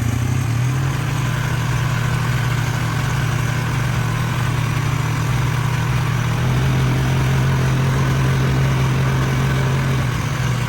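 An engine running steadily at an even speed, its low drone stepping slightly in pitch about a second in and again past the middle.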